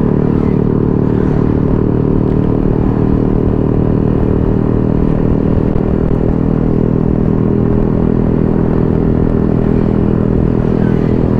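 Sport motorcycle's engine running at a steady cruise, heard from the rider's seat, with a low wind rumble underneath. The engine pitch holds even, with no revving or gear changes.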